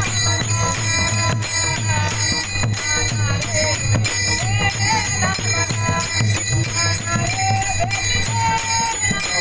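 Marathi kirtan music: a singer's voice gliding through a devotional melody over a steady drone, with small hand cymbals (taal) clashing on a steady beat.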